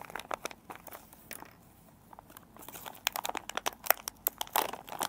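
Plastic packaging bag of a fuel injector repair kit crinkling and crackling as it is opened and handled, a string of sharp crackles that thins out in the middle and comes thickest in the second half.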